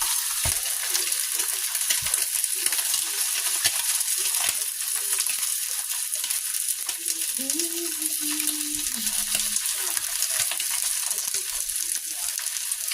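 Eggs frying in a very hot pan: a steady sizzle with constant crackling and spitting of the oil.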